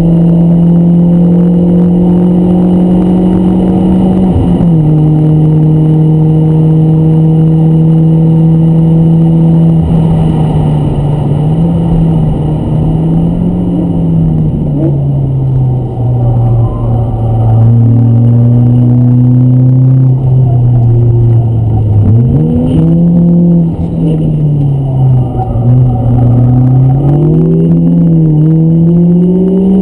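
BMW 318ti Compact's four-cylinder engine working hard, heard from inside the cabin on track. The engine note holds high, dips briefly about four seconds in, then rises and falls again and again with the throttle through the corners, over road and tyre noise.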